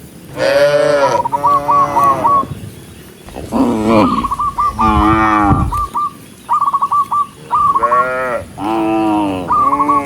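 Cattle mooing: about half a dozen long calls in quick succession, some running into each other, with short high repeated notes between them.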